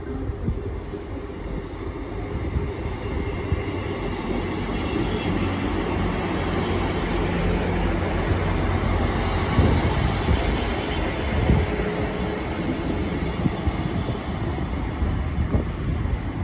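East Midlands Railway Class 222 Meridian diesel multiple unit passing close by, its underfloor diesel engines running and wheels rumbling on the rails. It grows louder toward the middle, with a couple of sharp knocks from the wheels partway through.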